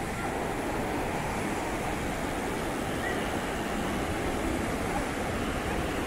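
Steady rushing of a large waterfall and the white-water river below it on the Kinso river, an even roar of falling water.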